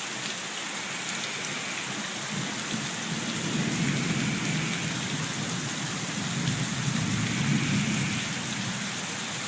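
Heavy rain pouring down steadily, with gutters overflowing. A low rumble of thunder swells about two seconds in and dies away near the end.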